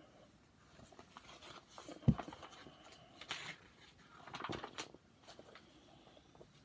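A sharp knock about two seconds in, then paper rustling and small clicks as a paperback picture book is picked up and its cover and pages are handled.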